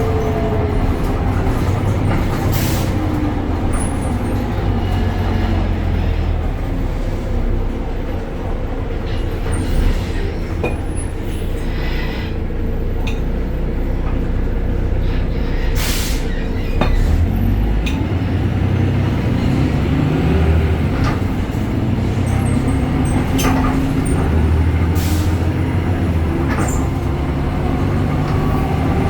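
BredaMenarini Avancity Plus city bus with a Deutz Euro 5 diesel and ZF gearbox running on the move, its engine note dropping near the start and climbing again near the end, with a few short sharp noises along the way.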